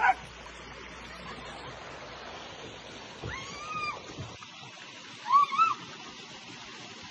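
Steady rush of water running down a water slide, with a drawn-out rising-and-falling cry about three seconds in and two short yelps near the end.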